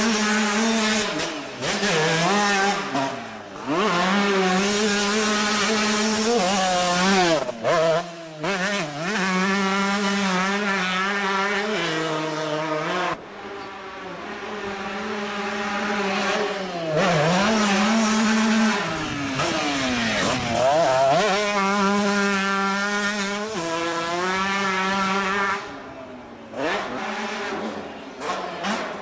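Honda CR125R two-stroke single-cylinder motocross bike revving hard. The engine pitch climbs and drops again and again as the rider works the throttle and gears, with brief cuts off the throttle. The sound grows and fades as the bike passes, softer about halfway through and again near the end.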